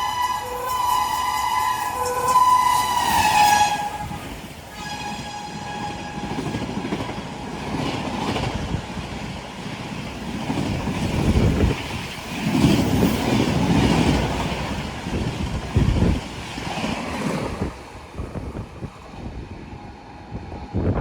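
WAP-7 electric locomotive horn sounding a long blast that sags in pitch as it cuts off, then a second, fainter blast. After that comes the rumble and rail clatter of the express's coaches passing, fading away near the end.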